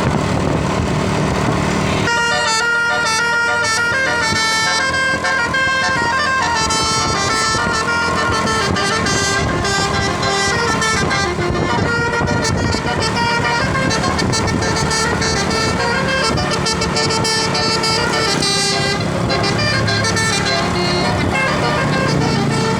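A 12-note basuri telolet air horn playing a melody note by note, starting about two seconds in and carrying on almost to the end, over a vehicle's engine running.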